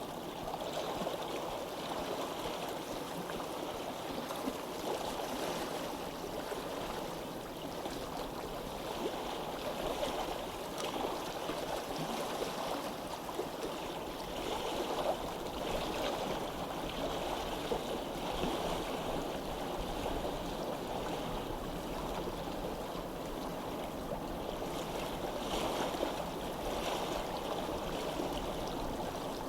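Stream water running steadily, a continuous rushing sound that swells and eases slightly.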